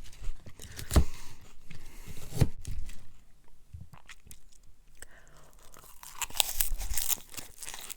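Close-up chewing and mouth sounds of a person eating a forkful of sloppy joe macaroni casserole: irregular short clicks, with a denser stretch of chewing noise near the end.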